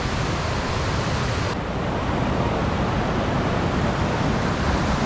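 Rushing water of mountain creek rapids: a steady roar. The highest part of the hiss drops away about a second and a half in.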